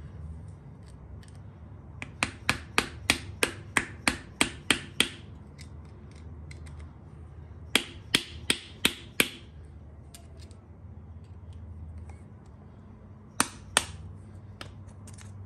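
Sharp metallic clicks of a steel pick and small screwdriver prying and picking at a spring-type oil passage plug in a VG30DE engine block. They come in runs, about ten at roughly three a second, then five more, then two near the end, over a low steady hum.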